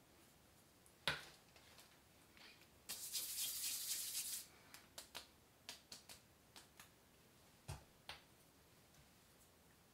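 Close-up handling sounds: a sharp click about a second in, a rustling hiss lasting about a second and a half around three seconds in, then a string of light clicks and taps with a soft knock near the end.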